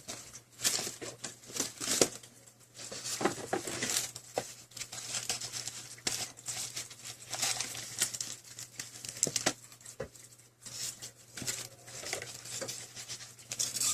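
Packaging of a replacement phone screen glass being unwrapped by hand: irregular crinkling and rustling with small clicks.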